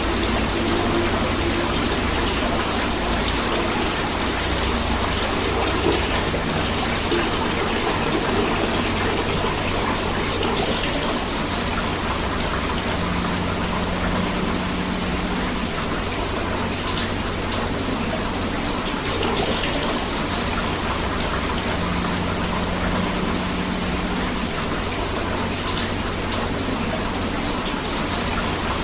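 Rain falling steadily together with a flowing river, a continuous even rush of water with no let-up.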